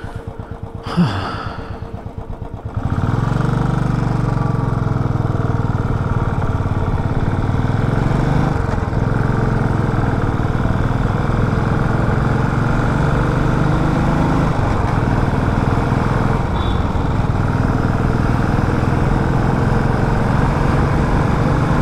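Motorcycle engine running with a slow, even thumping, then pulling away about three seconds in and carrying on at a steady, louder riding pace.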